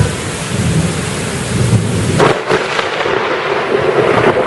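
Thunder rumbling over a steady hiss of heavy rain, with a sudden sharper crack a little over two seconds in.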